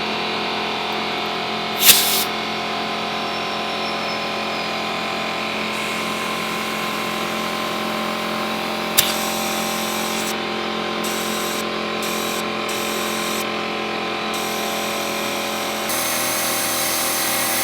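Air compressor motor running steadily, inflating a backhoe tire's inner tube. A short sharp hiss about two seconds in and a click about nine seconds in, and the running gets slightly louder near the end.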